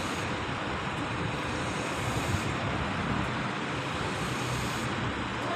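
Steady engine rumble of construction machinery running continuously, with no clear beat or pitch change.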